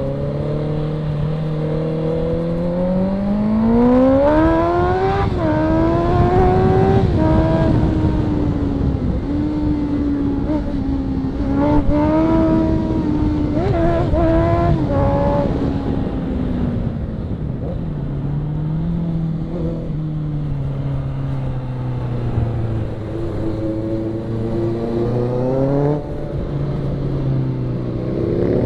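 Sport motorcycle engine under hard acceleration on track. Its pitch climbs with each gear, drops back at the shifts, runs lower and steadier for a stretch in the second half, and revs up again at the end.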